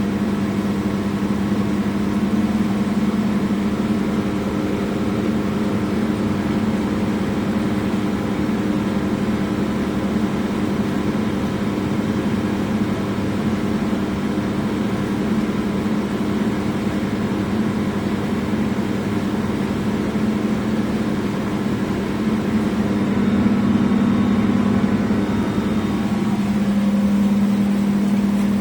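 Wastewater treatment machinery running with a steady, even hum that swells slightly near the end.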